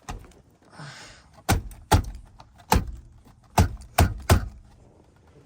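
Hands knocking and clacking parts of a car's steering column while trying to work a part loose: about seven sharp knocks at uneven spacing, with a brief rustle about a second in.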